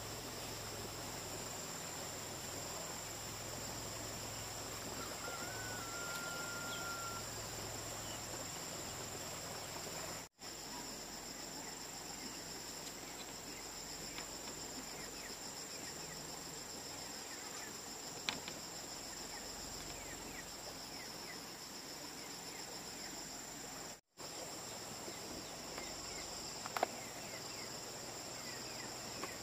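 Steady, high-pitched chorus of insects chirping, with a short whistled note about five seconds in and a couple of faint clicks later on. The sound drops out for an instant twice.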